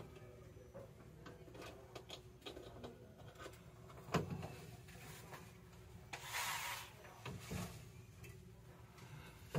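Faint scattered metal clinks and knocks of hands-on work around an engine hanging in a chain hoist, with one sharper knock about four seconds in and a short hiss a little after six seconds.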